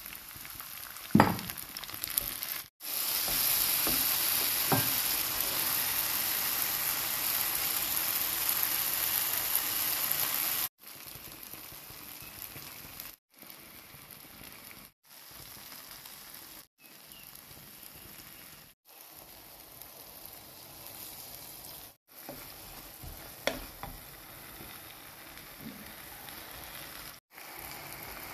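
Chopped tomatoes and onion sizzling and frying in a frying pan while a wooden spoon stirs them, with a few sharp knocks of the spoon against the pan, the loudest about a second in. The sizzle is loud for about eight seconds a few seconds in, then quieter through a string of short takes with brief cuts between them.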